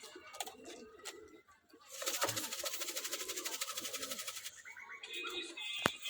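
Domestic pigeons cooing: soft, low coos repeating throughout. About two seconds in, a fast, even rattling noise joins for a couple of seconds, and there is a sharp click near the end.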